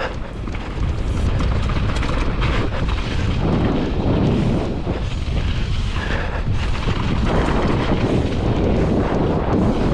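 Wind buffeting the microphone of a mountain bike speeding down a dirt trail, a dense low rumble that swells and dips. Short knocks and rattles of the 26-inch-wheel Trek running over the rough track come through it.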